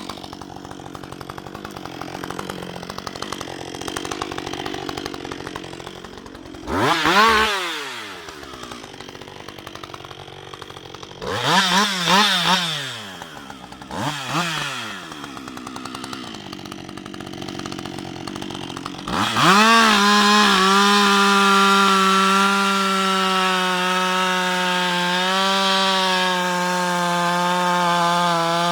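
Husqvarna 560 XP two-stroke chainsaw idling, its throttle blipped about four times with the engine pitch rising and falling back, then held wide open from about two-thirds of the way in at a steady high pitch, sagging slightly near the end.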